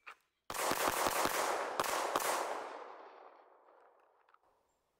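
Handgun fired in a fast string after the draw: several quick shots, a brief pause, then a few more. The reports echo and die away over about two seconds.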